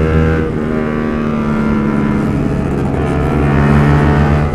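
Yamaha R15's single-cylinder four-stroke engine running hard at speed, heard from on the bike. Its note dips briefly about half a second in, then holds steady.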